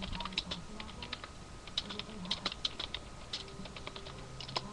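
Typing on a computer keyboard: quick, irregular keystroke clicks in short runs with brief pauses between.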